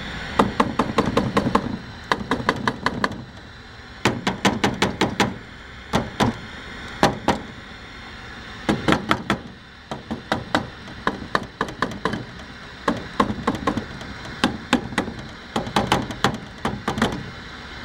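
Quick bursts of sharp taps on a running CRT television's circuit boards, several knocks per burst, repeated again and again: a tap test to find an intermittent bad connection.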